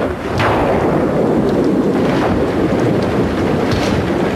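Steady, loud rushing noise of a wind-and-rain storm sound effect, with a sharp falling swish about half a second in.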